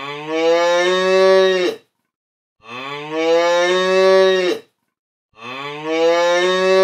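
A cow mooing: three long moos, each rising in pitch at the start and then held before breaking off, the same call repeated three times with short gaps between.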